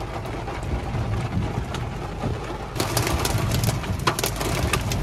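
Heavy rain beating on the roof and windshield of a car, heard from inside the cabin; about three seconds in, the hits grow denser, louder and sharper.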